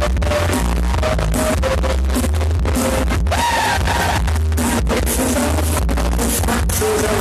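Loud electronic dance music with a heavy, pulsing bass line, played over a party sound system. A short gliding synth or vocal tone comes about three seconds in.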